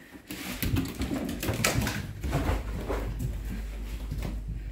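A wet Basenji scrambling and thrashing about on a blanket and rug, rubbing himself dry: a run of irregular scuffles, fabric rustling and soft knocks.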